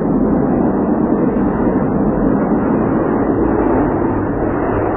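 Jet engines of a Sukhoi Su-27 fighter, a loud, steady noise as it comes in to land on the runway.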